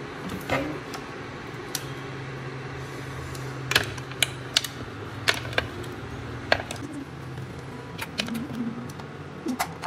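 Hard crab shells clicking and knocking against a pot and each other, about ten sharp, irregular clicks, over a steady low hum.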